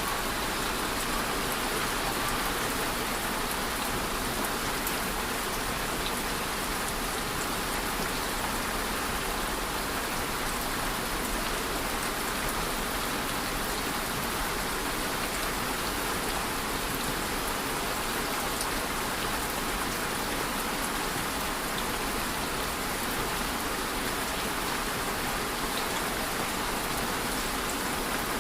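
Steady, even rainfall, a continuous hiss of rain with faint individual drops ticking through it.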